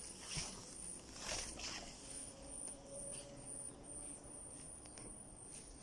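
Insects chirping in a high, pulsing trill that keeps on and off every fraction of a second, with brief rustles from the phone being moved through the plants in the first couple of seconds.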